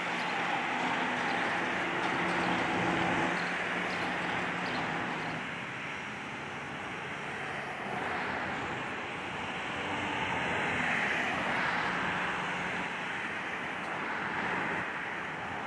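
Engine noise with a steady rushing sound that swells and eases several times, with a low steady hum in the first few seconds.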